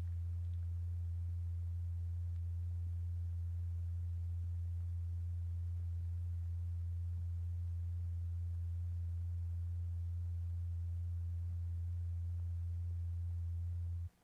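A steady, deep pure tone a little under 100 Hz from the audio oscillator driving the vibration of a cymatics experiment on kaolin. It holds without change and cuts off suddenly near the end.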